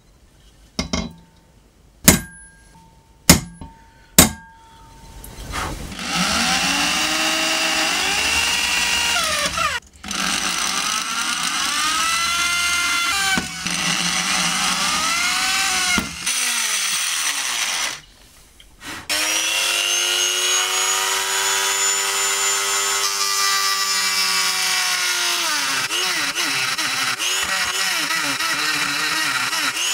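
Four sharp taps on a punch marking the steel knife blank, then an electric drill boring through the steel, running steadily with a whine that rises and falls as the bit cuts. The drill stops briefly about ten seconds in, again around sixteen seconds, and once more just before nineteen seconds.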